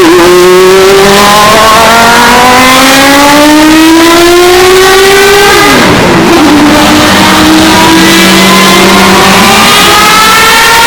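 Historic Group C race car engine at full throttle, climbing steadily in pitch, with one upshift about halfway through, then climbing again. Very loud, near the point of distortion.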